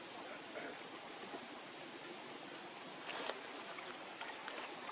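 Quiet outdoor ambience: a steady high-pitched insect drone, like crickets, over a faint hiss, with one brief click about three seconds in.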